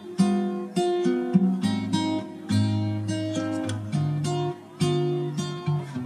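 Background music of an acoustic guitar picking single notes one after another, each ringing and fading.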